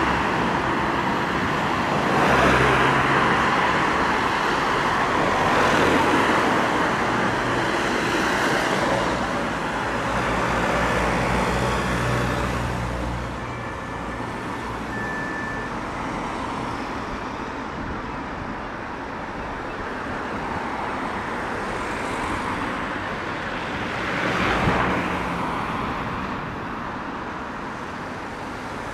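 Road traffic: vehicles passing close by one after another, each pass swelling and fading over engine and tyre noise, with the loudest passes about two, six, nine and twenty-four seconds in.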